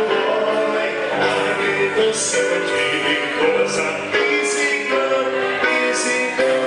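A band playing a rock song with singing, held notes changing every second or so.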